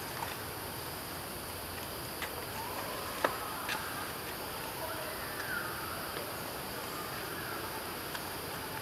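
Steady outdoor forest ambience with a constant hiss, faint high calls gliding up and down a few times, and a sharp click a little over three seconds in.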